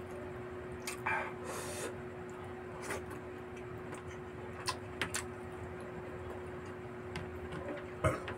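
Eating close to the microphone: scattered short clicks and smacks of chewing, with a brief rustle about a second in, as food is picked up by hand. A faint steady hum runs underneath.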